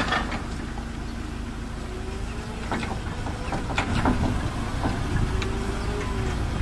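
Forklift engine running as the truck drives along: a steady low rumble with a faint whine that rises and falls, and a few light knocks.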